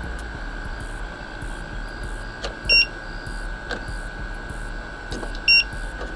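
Two short electronic beeps, nearly three seconds apart, over a steady high-pitched electrical whine and low hum.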